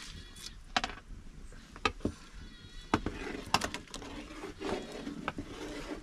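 Scattered sharp clicks and knocks, some with a brief ring, over a low hiss: a metal ladle stirring a steaming pot of buttermilk over a wood fire, with the crackle of the burning firewood.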